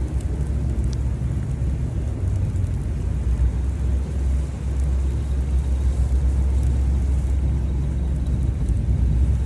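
Chevrolet Tahoe driving through deep snow, heard from inside the cabin: a steady low rumble of engine and tyres.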